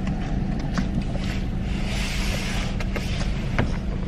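Steady low hum of an idling car heard inside its cabin, with scattered small clicks and a short hissing rush about two seconds in.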